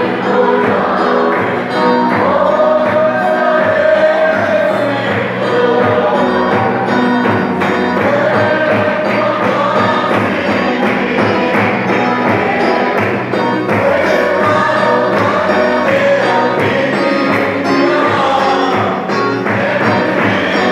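Gospel worship song: a group of voices singing together over loud amplified music with a steady beat and bass.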